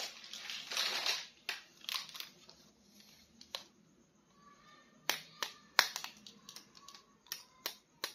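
Hands handling plastic toy packaging and an action figure: a crinkling rustle about the first second, then a run of sharp plastic clicks and taps, busiest in the second half.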